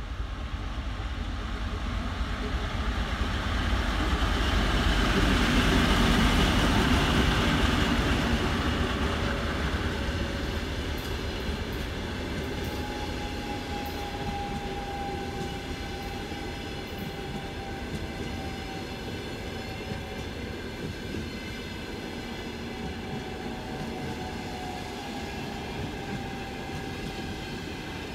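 A TEP70BS diesel passenger locomotive passes, loudest about six seconds in, followed by a long string of passenger coaches rolling steadily by on the rails. A faint, thin wheel squeal comes in during the second half.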